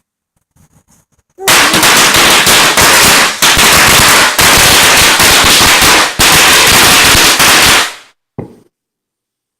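A long string of firecrackers going off in rapid, dense succession, a loud continuous crackle. It starts about a second and a half in and stops about six seconds later, followed by one short extra burst.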